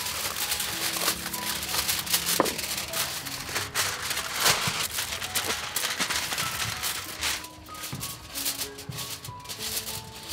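Aluminium foil crinkling and rustling as sheets are pulled off a roll and pressed flat on a wooden table, over soft background music.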